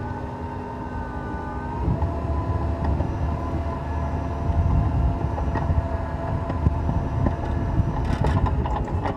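Cat 236B skid steer's diesel engine running with a low rumble and a steady whine that shifts pitch about two seconds in, with a few knocks near the end.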